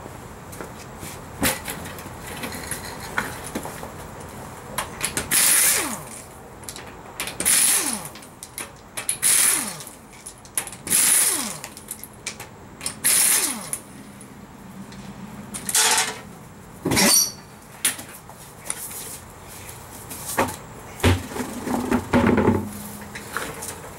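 Pneumatic impact wrench spinning off the rear wheel's lug nuts: about five bursts of roughly a second each, the pitch falling away as each one ends, then two shorter bursts. A few knocks and clatter near the end.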